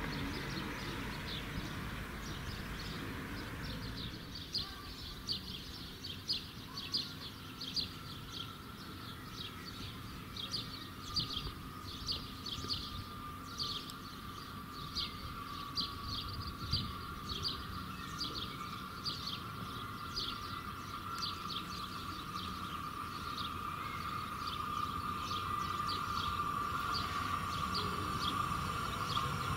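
Small birds chirping in quick, repeated short notes, over a steady high hum that grows louder toward the end as a Bombardier Talent 2 electric multiple unit approaches along the line.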